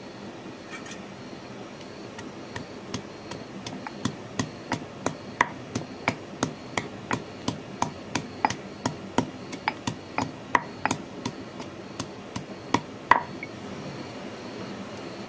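Stone pestle pounding garlic, chillies and coriander in a stone mortar: sharp knocks about three a second, getting louder after the first few, and stopping about two seconds before the end.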